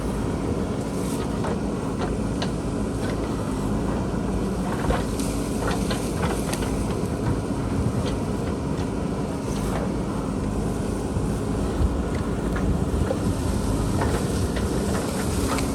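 JCB backhoe loader's diesel engine running steadily under load while digging, with scattered short knocks and clanks from the bucket working soil and rock.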